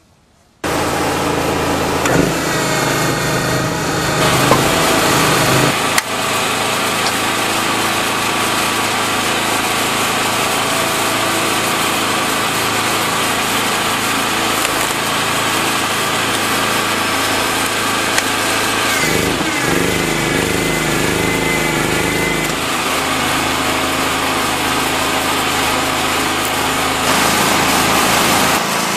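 A 9-ton vertical hydraulic log splitter running, starting about half a second in, its motor and hydraulic pump humming steadily while the ram works a log. The tone of the hum shifts several times as the load changes, most clearly around two-thirds of the way through.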